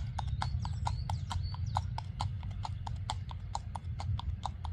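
Hooves of a horse or mule walking on an asphalt road: an even, quick run of clip-clop strikes, about five a second.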